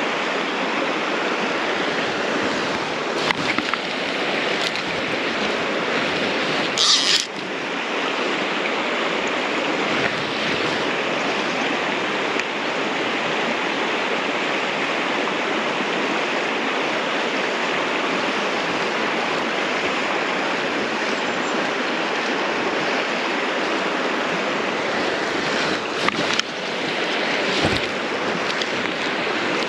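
River water running steadily over a shallow, stony bed, with a short hiss about seven seconds in and a few brief knocks near the end.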